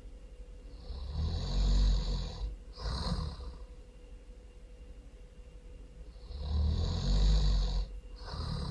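Loud snoring, two breaths: each a long, rattling snore lasting about a second and a half, followed by a short breath out, the second cycle starting about five and a half seconds after the first.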